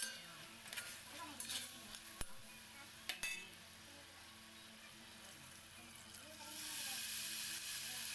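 Chopped meat sizzling as it is stirred in a stainless steel pot, with a few sharp clinks of the spoon against the pot in the first few seconds. About six and a half seconds in, a louder steady hiss starts as water is poured into the hot pot from a pitcher.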